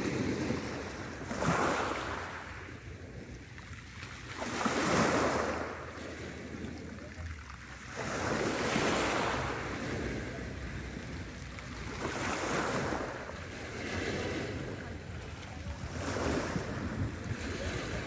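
Small sea waves breaking and washing onto the shore, each one a rush of surf that swells and fades. About six come in, roughly every three to four seconds.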